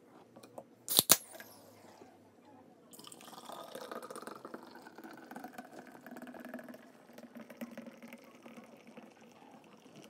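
A can of Guinness Draught cracked open with a sharp double crack about a second in. From about three seconds on it is poured upside down into a pint glass: a steady fizzing, gurgling pour as the nitrogen-widget beer surges into foam.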